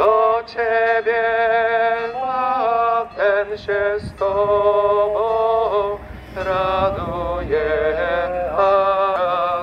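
A religious hymn sung by a single voice and played through horn loudspeakers carried in the procession: long held notes with vibrato, stepping from pitch to pitch, with brief breaks between phrases.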